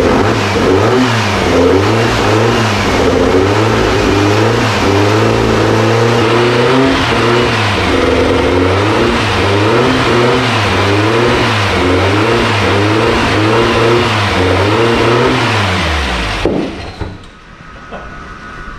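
Newly built 2234cc air-cooled VW flat-four running on its first start, kept off idle for break-in with its revs rising and falling about once a second, because the untuned carburettors won't let it idle. About sixteen seconds in it is shut off and its pitch falls as it runs down.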